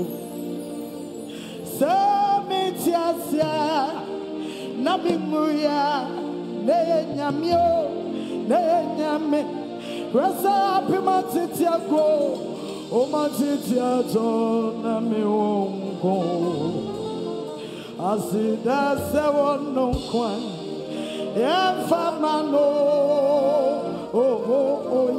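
A woman singing a gospel song solo into a microphone over sustained musical accompaniment, her voice swooping and bending between held notes.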